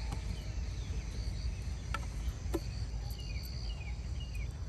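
Insects chirping in short steady high trills, with a few short falling calls and a couple of sharp clicks over a steady low rumble.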